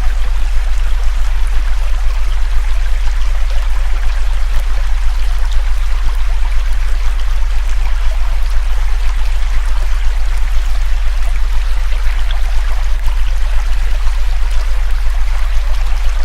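A deep, steady synthesized tone, the loudest thing heard, layered over the constant rush of a flowing river.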